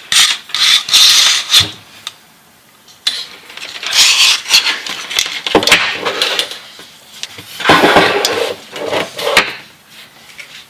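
Scraping and rubbing with sharp clicks, in three bouts of a second or two each with short quiet gaps between.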